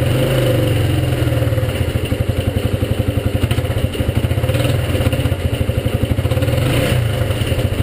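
Suzuki GZ125 Marauder's single-cylinder four-stroke engine idling cold, its firing beat turning uneven for a few seconds in the middle, after a cold start with the throttle held.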